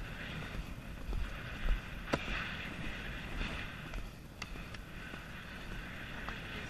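Wind rushing over the microphone as a horse moves along a sandy track, with the muffled, uneven thuds of its hooves in the sand underneath and a few sharp clicks.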